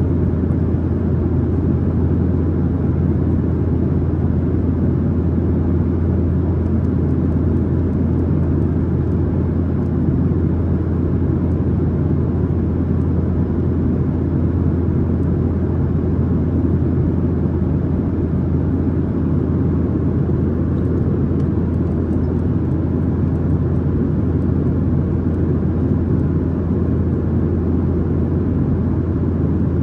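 Steady cabin noise inside a Boeing 737-900ER in flight: the drone of its CFM56-7B turbofan engines and rushing airflow, with a strong, even low hum and no changes.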